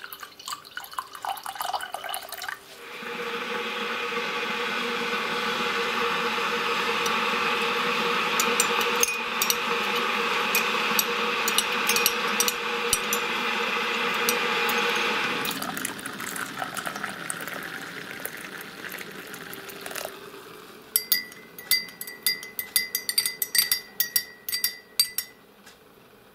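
Water poured in a steady stream into a glass mug for about twelve seconds, then a metal spoon stirring and clinking repeatedly against the glass near the end.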